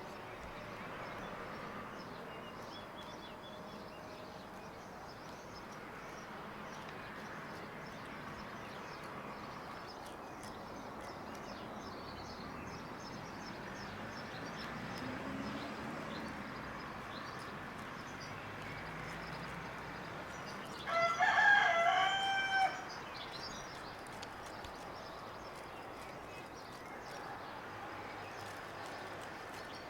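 A rooster crowing once, a single drawn-out call of about a second and a half about two-thirds of the way in, standing out loud above a faint steady background.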